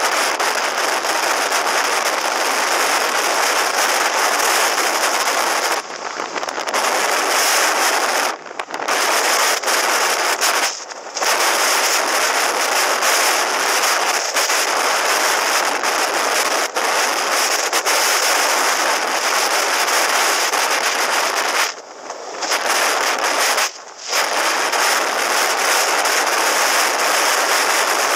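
Wind buffeting a helmet-mounted camera's microphone on a motorcycle at road speed: a loud, crackling rush that drops out briefly several times.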